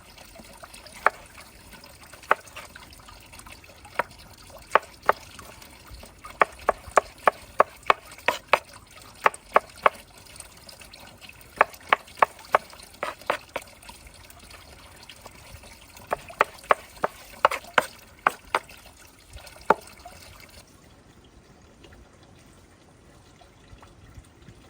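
Irregular sharp pops and crackles from meat cooking in a saç pan over an open fire, one to several a second, stopping about twenty seconds in.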